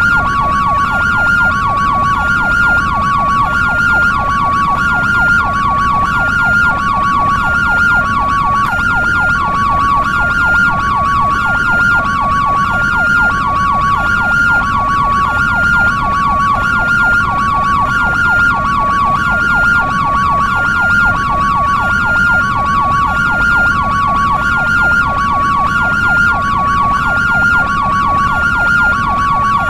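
European ambulance two-tone hi-lo siren, switching steadily between a high and a low note about every two-thirds of a second, with a faster yelp-style warble sounding underneath.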